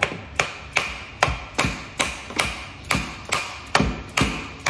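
A mallet striking a joint of an old wooden rocking chair in a steady run of light blows, about two to three a second, knocking apart a joint that is held with nails.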